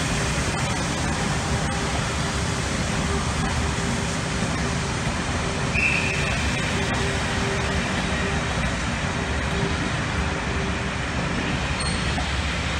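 Passenger coaches of a steam-hauled train rolling past on the rails: a steady low rumble of wheels on track, with a brief high tone about halfway through.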